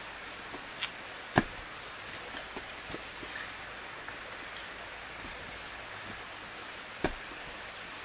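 A steady high insect drone, with a few sharp knocks from concrete blocks and stones being handled in masonry work. The two loudest knocks come about a second and a half in and about seven seconds in.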